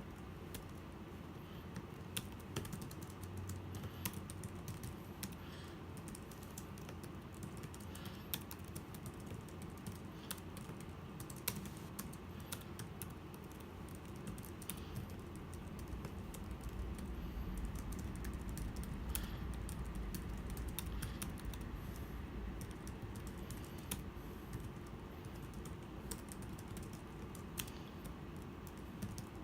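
Typing on a Logicool iK1200 keyboard for the 12.9-inch iPad Pro: a run of irregular key clicks over a steady low background rumble.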